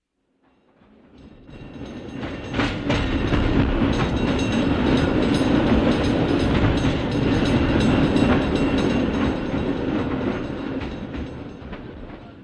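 A cable car passing by, a rumble with rattling clicks. It swells in over the first couple of seconds, holds, then fades away over the last few seconds.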